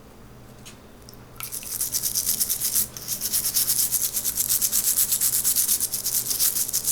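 A brush scrubbing small plastic parts in soapy water, fast and steady back and forth. It starts about a second and a half in, after a few faint clicks.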